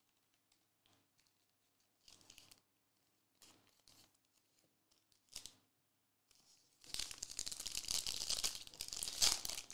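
A few faint rustles and taps of cards being handled, then from about seven seconds in a continuous crinkling and tearing as a shiny wrapper is torn open and crumpled by hand.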